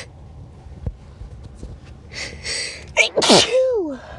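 A person sneezing once. A breathy build-up inhale about two seconds in leads to a loud sneeze about a second later, and its voiced tail falls in pitch as it fades.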